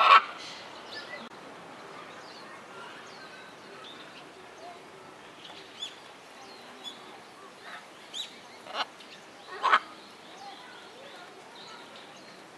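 Macaws squawking: one loud, harsh squawk right at the start, then two short squawks about nine and ten seconds in. Faint chirps of small birds sound in between.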